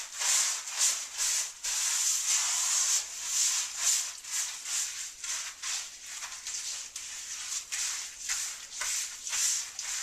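Paper towel scrubbing a wooden butcher-block chopping board in repeated back-and-forth strokes, a gritty rubbing of leftover kosher salt and lime juice against the wood.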